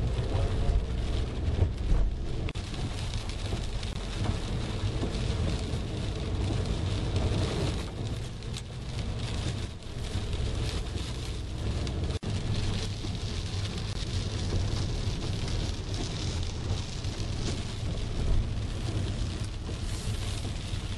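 Rain and wet-road noise heard from inside a moving car: a steady hiss of rain and tyres on the wet road over a low rumble of the car.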